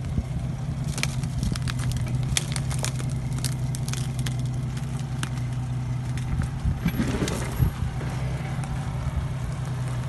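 Jeep 4x4 engine running steadily at low revs as it crawls off-road, with frequent sharp crackles and snaps of dry branches and brush scraping and breaking against the vehicle.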